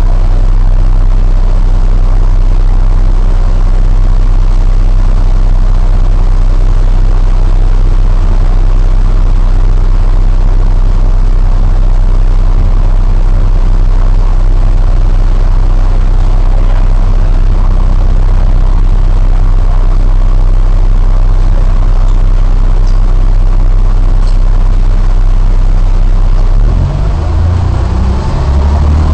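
Non-air-conditioned double-decker bus's diesel engine idling steadily, heard from on board. Near the end the engine note changes as the bus begins to pull away.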